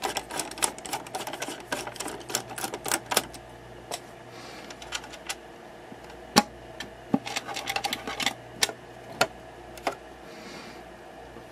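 Rapid, irregular clicking of a screwdriver backing the cover screws out of an HVAC actuator's housing, then sparser clicks and taps as the cover is handled and lifted off.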